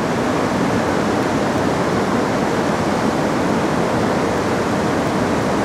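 Steady, even rushing noise of wind and moving river water, with nothing else standing out.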